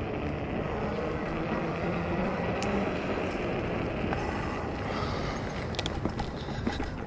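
Steady rumble and wind noise from a fat-tire e-bike rolling slowly along pavement. A few sharp knocks and rattles about six seconds in, as the bike rolls onto the wooden planks of a rail crossing.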